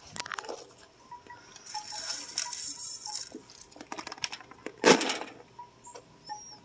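Raccoon crunching dry cat food kibble, with small clicks and a rustle, then a handful of kibble thrown down hits the mat in one loud scattering patter about five seconds in.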